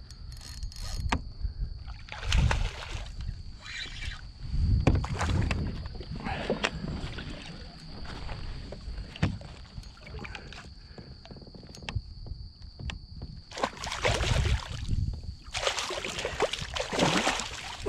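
A hooked redfish splashing at the surface beside a kayak as it is brought to the landing net, in two bouts near the end. Before that, scattered knocks and water sloshing against the kayak's hull while the fish is fought on the rod.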